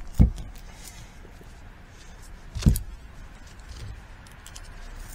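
Two dull knocks, one at the start and another about two and a half seconds later, with light metallic clinking between, as a chimney-sweep brush weight and tools are handled on concrete.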